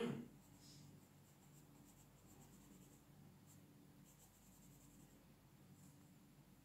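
Faint scratching of a coloured pencil shading on paper, over a low steady hum. A short, sharp sound right at the start is the loudest thing.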